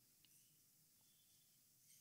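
Near silence: room tone in a pause between sentences.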